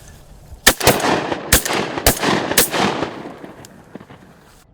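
A quick volley of about five shotgun shots from duck hunters firing at mallards, fired within about two seconds, each shot ringing out and fading.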